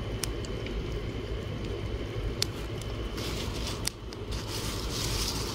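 Fire pit of burning dry leaves and branches crackling, with a few sharp pops and a hiss that grows louder about three seconds in, over a steady low rumble.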